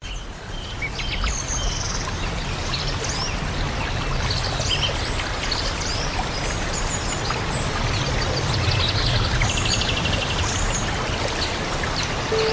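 Flowing water running steadily, with birds chirping and calling over it, including a short rapid trill about nine seconds in.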